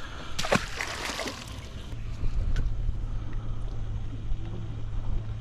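A boat motor humming steadily at one low pitch, starting about two seconds in, over wind and water noise. A sharp knock comes about half a second in.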